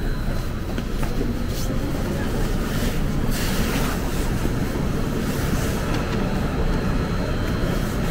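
Seoul subway train running: a steady rumble of wheels on rail, with a few brief clicks from the track.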